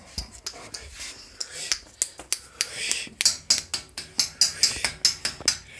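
Puppy licking and mouthing close up: an irregular run of sharp wet smacks and clicks, several a second, growing louder about halfway through.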